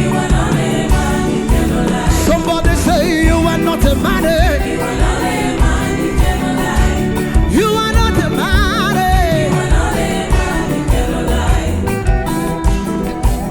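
Gospel music: wavering sung lines without clear words over a band with a steady beat.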